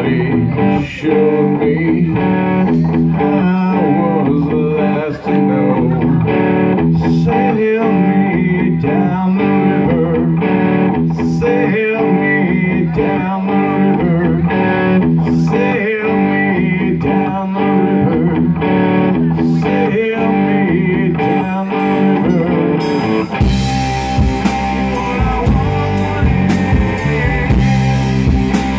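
Live rock band: electric guitar with a harmonica blown into the vocal microphone, in a bluesy intro. About 23 seconds in, the full band comes in, with heavier bass and drums.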